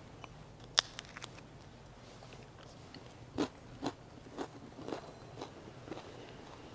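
A priest chewing a large wafer host, picked up faintly by a close microphone: a sharp click about a second in, then a run of soft crunches about two a second.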